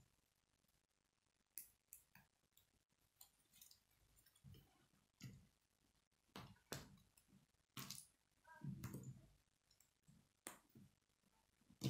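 Plastic K'nex pieces clicking as they are handled and snapped together: faint, sharp, irregular clicks, with a short cluster of rattling clicks about nine seconds in.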